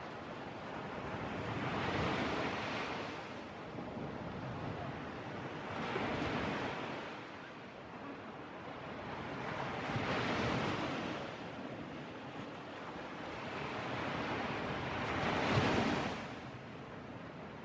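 Sea surf breaking on the shore: a wave swells and washes in about every four seconds, four times, the last one near the end the loudest.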